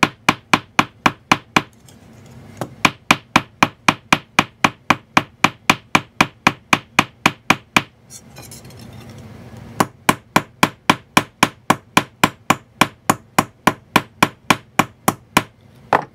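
Round face of a hammer tapping rapidly, about four light strikes a second, on the end of a brass wire rivet in a brass strip resting on a steel bench block, mushrooming the wire over to fill the countersink for a flush-set rivet. The tapping comes in three runs, with a short break about two seconds in and a longer one about eight seconds in while the strip is flipped over, and one last tap near the end.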